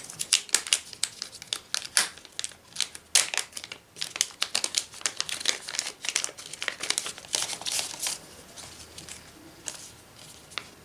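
Product packaging being opened by hand: irregular crinkling and crackling with sharp clicks, thinning out about eight seconds in.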